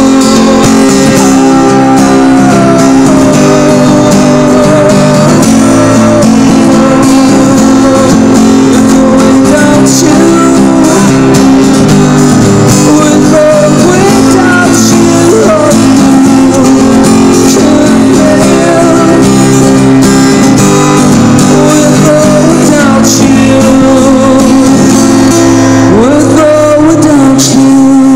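Acoustic guitar strummed steadily by a street musician, with a man's voice singing along at times.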